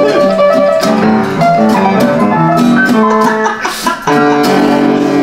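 A red semi-hollow guitar strumming a chord progression with an upright piano playing along. The chords change about every half second, and just after a brief drop in loudness at about four seconds a chord rings out and is held.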